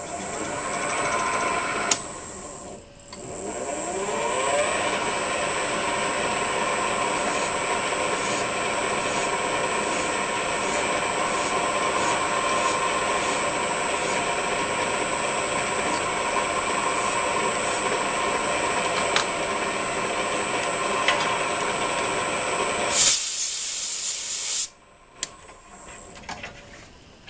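VFD-driven lathe spindle starting up, dipping briefly and spinning back up with a rising whine, then running steadily with a high whine. A flat file is stroked over and over against the spinning threaded bolt. Near the end comes a loud burst of hiss, and then the lathe shuts off.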